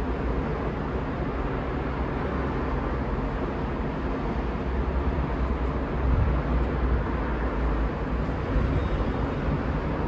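Steady noise of city road traffic mixed with wind, with a low rumble that swells about halfway through.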